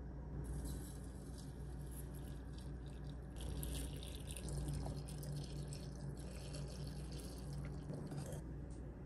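A stream of liquid poured into a glass teapot's metal strainer insert, splashing steadily. It grows heavier about three seconds in and stops near the end.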